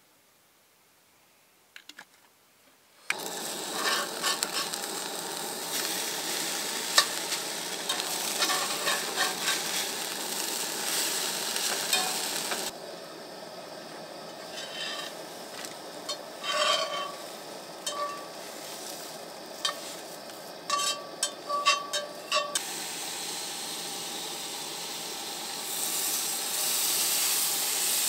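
Breakfast food sizzling in a hot frying pan, starting suddenly about three seconds in after near silence, with clicks and scrapes of a utensil stirring it. The sizzle drops quieter a little before halfway and grows louder again near the end.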